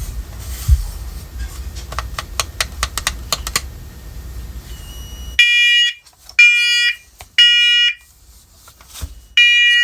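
First Alert combination smoke and carbon monoxide alarm in test mode. After a run of light clicks, its horn gives three loud, high-pitched beeps about a second apart, pauses, then starts the next set of three near the end. This is the three-beep temporal pattern that signals smoke.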